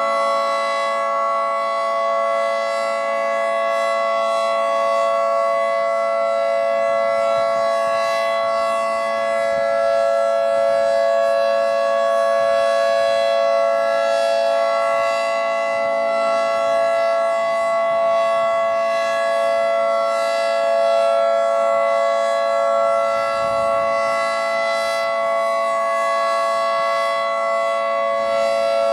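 Federal Signal 2T22 dual-tone siren sounding a steady alert at full speed, its two rotors giving a held two-note chord, during a weekly siren test.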